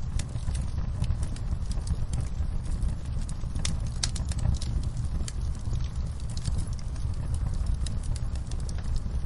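Wood fire crackling in a fireplace: frequent irregular sharp pops and snaps over a steady low rumble.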